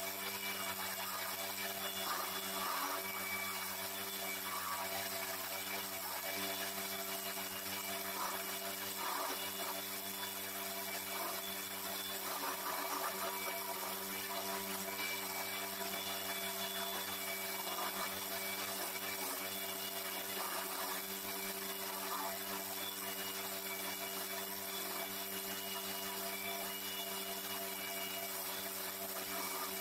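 Home-made wood lathe's electric motor running at a steady hum while a chisel cuts a spinning wooden fishing-lure blank, the cutting coming in irregular rough scraping passes every second or two.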